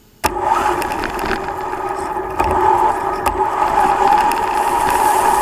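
Traxxas Slash Ultimate RC truck driving: its brushless electric motor whines steadily over rough tyre and chassis noise, with a couple of sharp knocks from bumps. The sound cuts in suddenly about a quarter second in.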